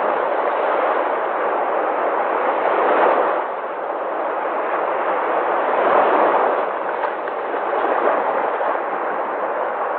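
Sea waves washing onto the shore: a continuous surf noise that swells twice, about three and six seconds in.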